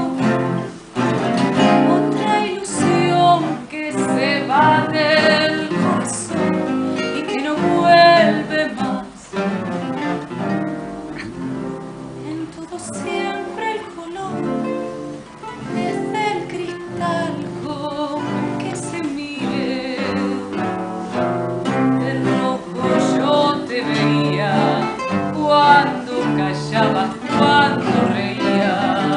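A woman singing with vibrato, accompanied by several acoustic guitars playing together.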